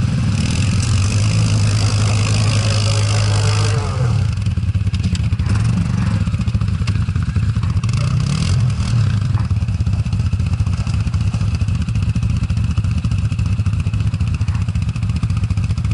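ATV (quad bike) engine running under load, heard on board the riding machine, steady for the first few seconds and then rising and falling in pitch with the throttle from about four seconds in.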